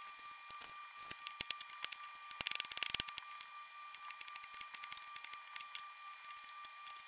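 Chef's knife chopping a shallot on a plastic cutting board: scattered light taps, then a quick run of about ten rapid chops about two and a half seconds in, then sparser taps as the shallot is minced. A faint steady hum sits underneath.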